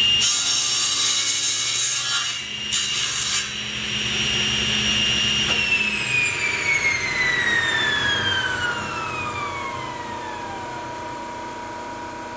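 Table saw running at full speed with a steady high whine as the blade crosscuts through a hardwood table leg, giving about two seconds of loud rough cutting and then a shorter second burst. The motor is then switched off, and the blade's whine falls steadily in pitch as it spins down.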